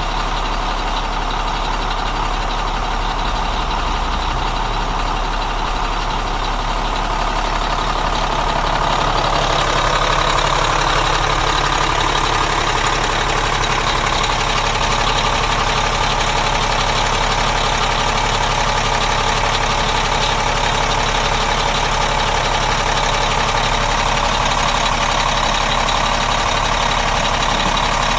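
Dump truck engine idling steadily, growing louder about ten seconds in.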